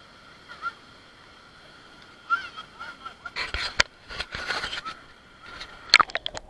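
Mountain stream rushing over rocks below a waterfall, heard faint and steady. From about two seconds in come irregular knocks and splashy bursts, and near the end a quick run of sharp knocks, as the camera is handled and brought down into the water.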